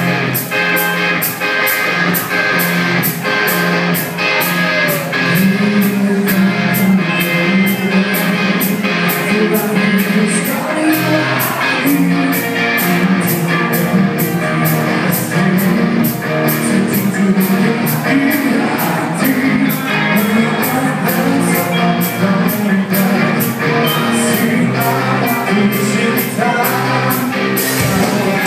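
Live rock band playing: a man singing over electric guitars and a drum kit, with a steady beat in the cymbals.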